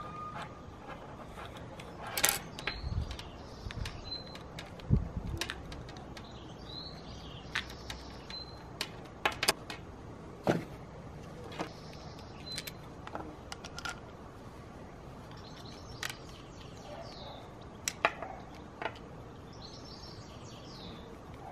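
Plastic Meccano parts clicking and knocking as they are handled, fitted together and set down on a glass table top, in irregular sharp clicks with a few duller thumps. Small birds chirp now and then in the background.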